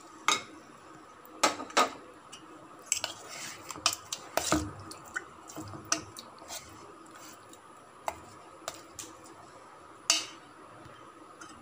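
A steel spoon stirring thick semolina and curd batter in a stainless steel vessel. It scrapes and clinks irregularly against the metal sides, with wet squelches of the batter.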